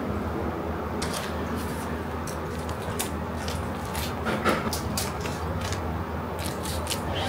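A series of light clicks and knocks, like objects being handled, over a steady low hum.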